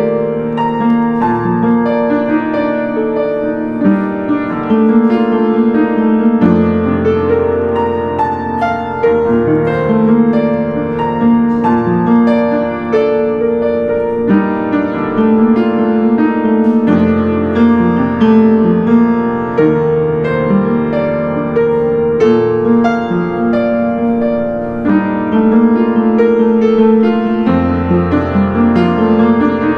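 Solo upright piano playing a free improvisation, with deep bass notes held under a steady flow of higher notes.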